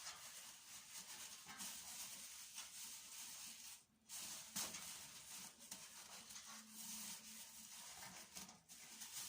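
Near silence: faint hiss of room tone, dropping out briefly twice.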